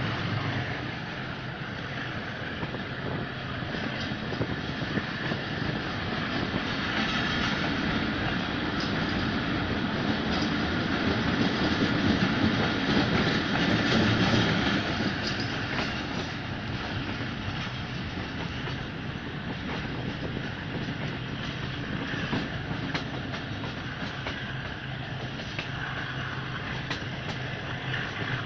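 Train in motion, heard from aboard: a steady running noise of wheels on rails with scattered clicks. It grows louder about halfway through, then eases off.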